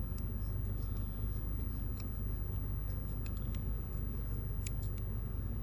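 Irregular small clicks and snips of a hand cutting tool working on a small plastic leg of a fuel pump bracket, over a steady low hum.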